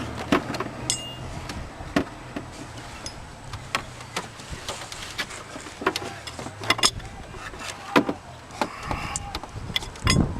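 Irregular metallic clicks and knocks of a spanner being worked onto a reverse light switch on a gearbox, with a heavier knock near the end.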